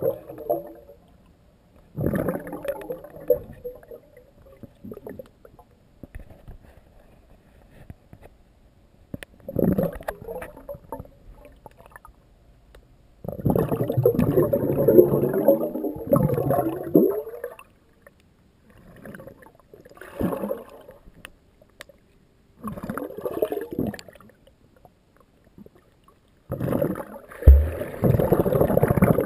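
Underwater water noise from a swimmer in a pool, picked up by a GoPro in its waterproof housing. Irregular bursts of bubbling and rushing water come with quiet gaps between them; the longest, about four seconds, falls near the middle as exhaled breath bubbles rise past the camera.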